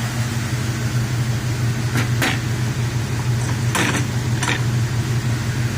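1991 Ford Mustang 5.0 V8 idling steadily, with a few light clicks about two, four and four and a half seconds in.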